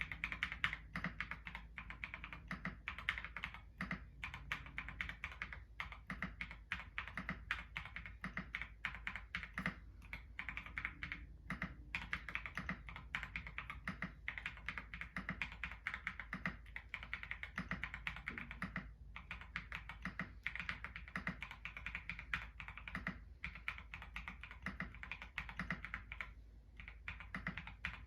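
Continuous fast typing on a QK65 mechanical keyboard with lubed Boba U4T tactile switches, an FR4 plate and KAT-profile keycaps, with a few short pauses between runs of keystrokes.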